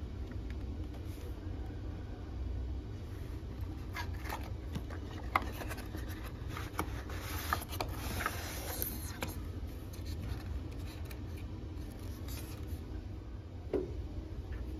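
Hands handling a cardboard toy box: scattered rubs, scrapes and light taps from about four to nine seconds in, with a single click near the end, over a steady low hum.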